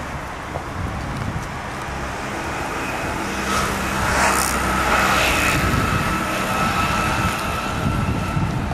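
Road traffic on a city street: a steady rumble of cars that swells as a vehicle passes close about halfway through, with a steady whine lasting a few seconds.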